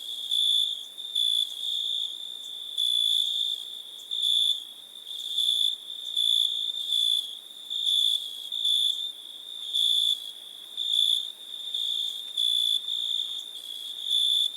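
Crickets chirping in a steady high-pitched trill, with louder chirps pulsing irregularly over it a little more than once a second.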